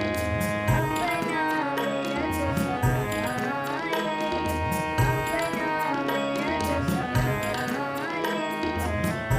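Indian devotional music: tabla playing a steady rhythm under a sustained, held-note melody, with no clear singing.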